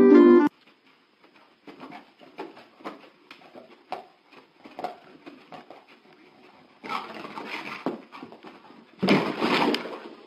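Piano music cuts off about half a second in. Then a dog moves about on a carpet: irregular soft taps and scuffles, with two louder scuffling stretches near the end.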